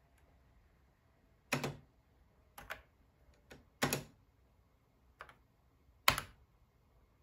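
About half a dozen separate keystrokes on a computer keyboard, unevenly spaced with pauses between them; the last is the loudest.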